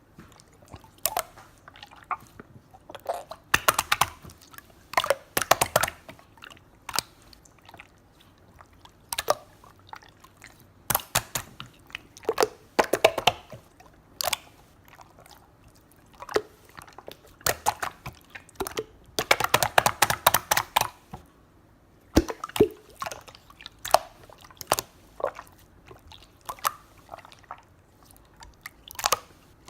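Slime being squeezed and pressed by hand, giving irregular bursts of wet clicks and pops with short pauses between.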